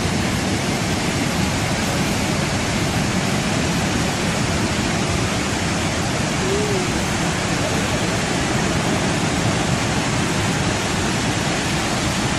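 Niagara Falls: the steady, unbroken rush of the falling water.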